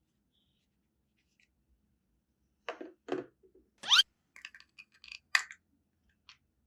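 Quiet at first. From about two and a half seconds in come a few short clicks and scrapes, with one quick rising cartoon 'boing' sound effect about four seconds in and a sharp click soon after.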